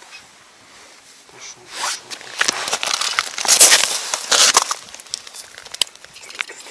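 Crackling, rustling noise of a padded winter jacket sleeve and gloves rubbing right at the microphone, with scattered sharp clicks, rising about two seconds in and loudest around the middle before it dies down.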